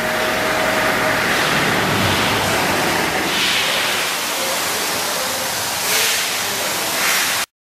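Pressure washer spraying water onto a truck: a steady hiss of spray, louder about three seconds in and again around six seconds. It cuts off abruptly just before the end.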